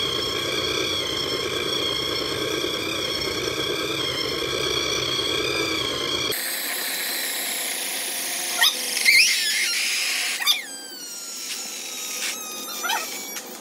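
Steady electric whine of the burning RC car's motor running, made of several even tones. It cuts off abruptly about six seconds in. After that come scattered sharp pops and clicks, gliding high squeals and a slowly falling whistle from the car as it burns.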